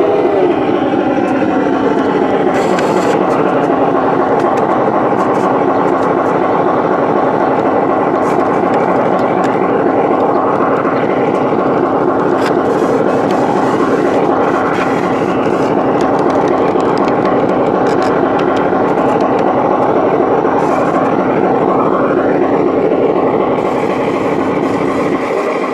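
Steady, loud rolling rumble and rattle of a large-scale garden model train running on its track, heard from a camera car riding close behind the caboose.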